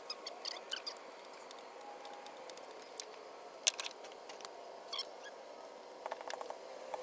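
Scattered clicks and clinks of hand tools and sockets on metal during spark plug work, with a quick run of ratchet clicks about six seconds in.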